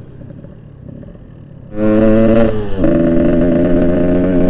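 Yamaha RX-King 135cc single-cylinder two-stroke engine running loudly, cutting in suddenly about two seconds in; its note drops once a second later and then holds steady.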